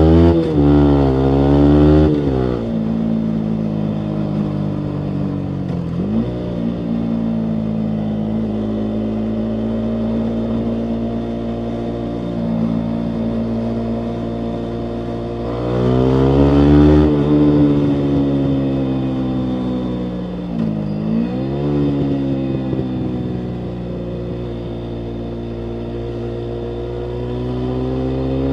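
Yamaha MT-125's single-cylinder four-stroke engine running through a full Akrapovic exhaust while riding. Its pitch climbs under throttle, drops briefly at gear changes a few times, then holds steady at cruising revs before climbing again.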